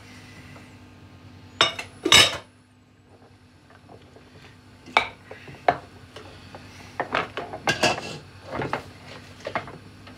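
Glass pan lids and metal pots clinking and knocking as they are handled on a stove: two loud clanks about two seconds in, then scattered clinks and a run of them near the end.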